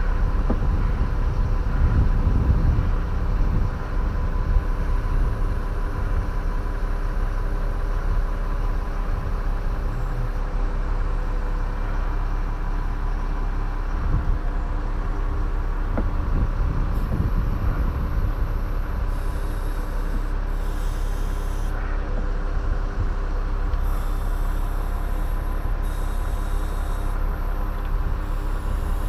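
Efco MT 3600 top-handle chainsaw idling steadily, with some brief knocks and rustling of handling close by.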